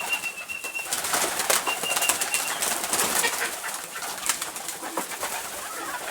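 A flock of pigeons feeding: a busy, irregular clatter of pecks and scuffles, with wing flaps and soft cooing. A thin, high, steady whistle sounds on and off during the first few seconds.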